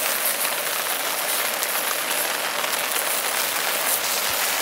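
Steady hiss of rain falling on a tarp, mixed with sausages sizzling in a cast iron frying pan on a gas burner.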